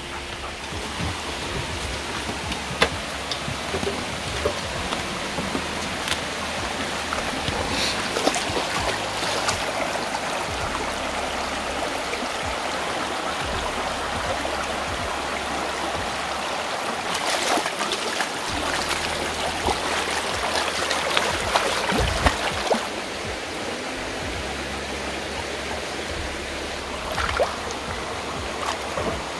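Shallow rocky stream running steadily, with louder splashing in stretches as a dog wades through the water.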